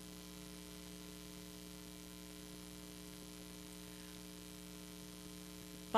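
Steady electrical mains hum with faint hiss.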